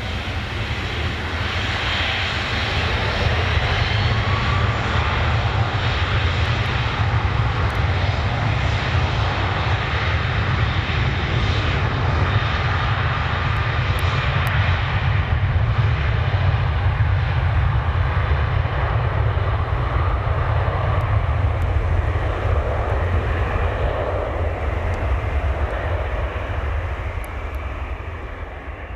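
Boeing 777-300 airliner's twin jet engines running steadily with a deep rumble as it rolls along the runway, fading out near the end.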